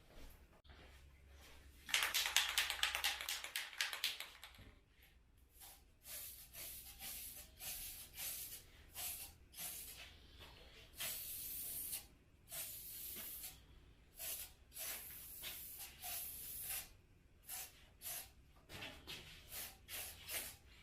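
Aerosol can of metallic paint-and-primer rattling rapidly for about two seconds, then spraying in many short hissing bursts with brief pauses between them.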